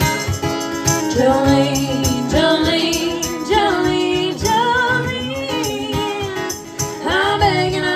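Voices singing in harmony over a steady beat, with jingling percussion like a tambourine.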